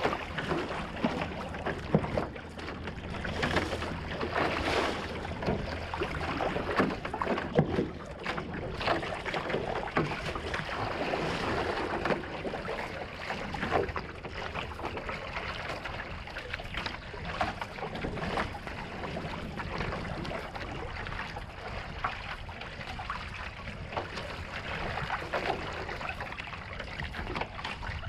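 One-person outrigger canoe under way: water rushing along the hull, with the splash of a single-blade paddle dipping in and pulling through on each stroke.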